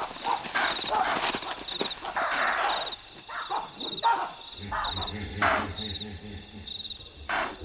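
Crickets chirping in a steady pulsing chorus, while animals scuffle and rustle through grass and give several short, sharp calls, two of them near the end.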